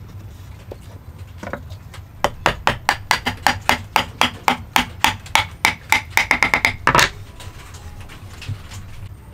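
A hammer tapping a mitred wooden corner joint together to seat it: one knock, then a quick, even run of sharp knocks on the wood, about five a second, coming closer together near the end and finishing with one harder blow.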